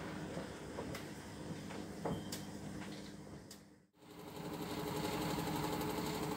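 Front-loading washing machine running a gentle wash cycle, its motor humming steadily with a few light clicks as the drum turns slowly. About four seconds in, the sound cuts out abruptly, then the hum comes back slightly louder.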